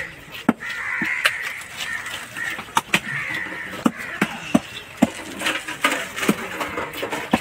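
Large curved knife chopping catla fish flesh on a wooden chopping block: about a dozen sharp knocks of blade on wood at an uneven pace.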